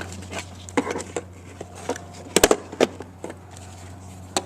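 Metal LATCH connector hooks and their strap clicking and knocking against a plastic car seat as the strap is threaded through the side. A few scattered clicks, the loudest a quick double click about two and a half seconds in, over a steady low hum.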